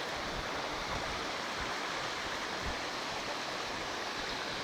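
Steady rush of flowing water, a stream or small waterfall, running evenly throughout.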